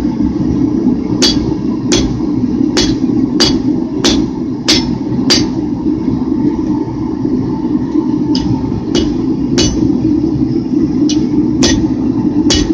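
Hand hammer striking hot steel over a hot-cut hardy in the anvil, cutting off excess stock from a straight razor's handle. It lands a run of about seven sharp blows roughly two-thirds of a second apart, pauses, then strikes a few more times, over a steady low rumble.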